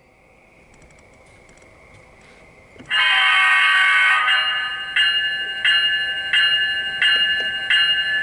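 Sound decoder of an HO-scale model Metra MP36 diesel locomotive: a horn blast held for about a second and a half starting about three seconds in, then the locomotive bell ringing in even strokes about every 0.7 s, each fading before the next.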